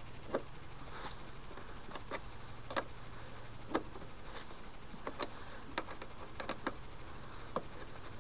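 Metal-on-metal clicks of a wrench working the nut on a brass battery-terminal cut-off switch as it is tightened: about a dozen sharp, irregular clicks over a faint steady low hum.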